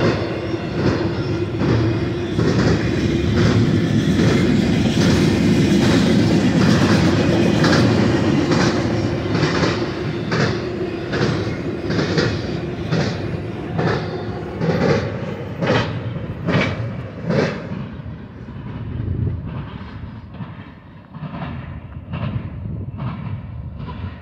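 Intermodal freight train of trailer-carrying flatcars rolling past: a steady rumble with wheels clicking over the rail joints about every 0.7 seconds. The sound fades out over the last ten seconds as the end of the train goes by.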